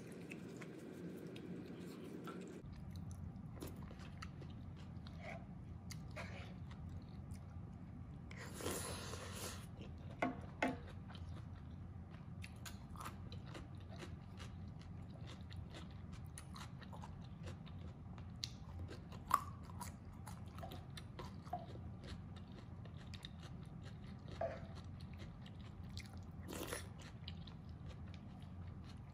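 Close-miked eating: chewing and mouth sounds of someone eating mapo tofu with rice, full of small wet clicks, with a few sharper clicks and two short hisses, about nine and twenty-seven seconds in, over a steady low hum.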